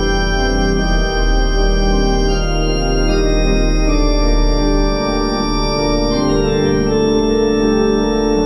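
Two-manual organ played with hands and pedals: sustained chords that change every second or so over a steady low pedal bass.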